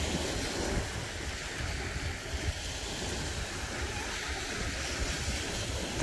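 Baltic Sea surf washing onto a sandy beach, a steady wash of noise with wind rumbling on the microphone.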